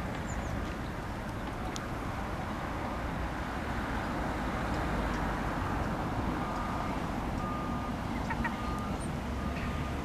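Steady outdoor background noise with a low rumble, and faint herring gull calls. In the second half a faint tone beeps on and off.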